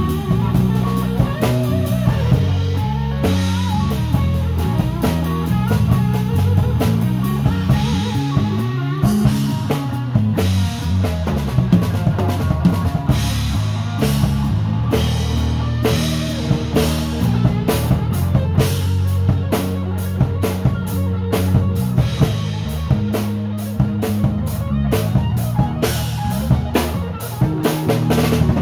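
Live rock band playing electric guitar, bass and drum kit, with the drumming growing busier in the second half.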